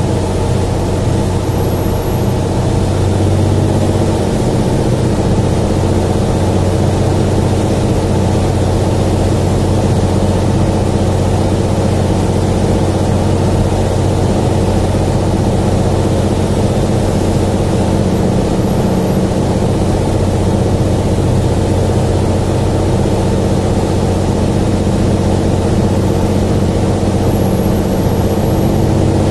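Aircraft engines and airflow heard from inside the passenger cabin during the descent on approach: a steady, loud drone with a low hum and several even tones that holds without change.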